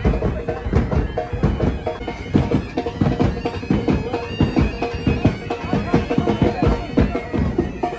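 Bagpipe band playing: a steady drone under a piped melody, with drums beating throughout.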